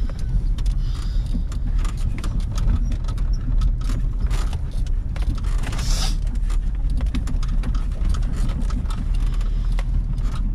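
Jeep driving slowly over a rough dirt trail, heard from inside the cab: a steady low engine and tyre rumble with frequent small clicks and rattles as the vehicle jolts over the ruts, and a brief louder rattle about six seconds in.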